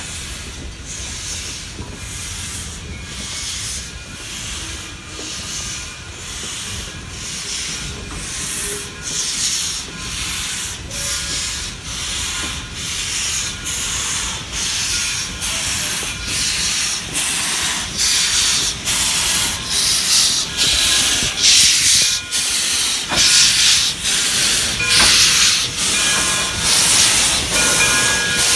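Frisco 1630, a 2-10-0 steam locomotive, working past with a steady beat of exhaust chuffs, about one and a half a second, growing louder as the engine draws near, over the low rumble of the train rolling on the rails.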